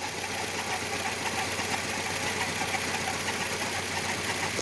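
Volkswagen Gol G6 engine idling with a fast, even ticking noise from the timing-belt area. The noise began after a timing-belt replacement, and the owner takes it to come from a pulley.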